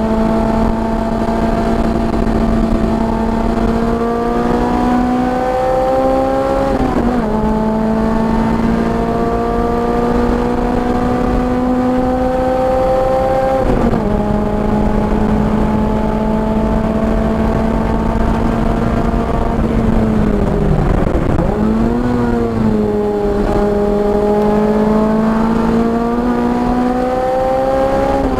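Car engine at full throttle on a race track, its pitch climbing slowly through each gear and dropping sharply at upshifts about 7 and 14 seconds in. Near two-thirds of the way through it falls away as the car slows for a corner, then climbs again, with steady road and wind noise underneath.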